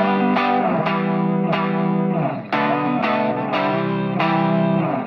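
Background music: sustained pitched chords, re-struck about every half second.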